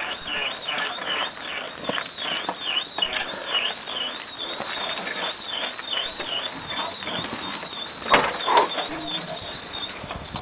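High-pitched squeak from a rolling pedal go-kart, its pitch wavering about three times a second, the cycle slowing and the squeal going steady near the end. A sharp knock about eight seconds in.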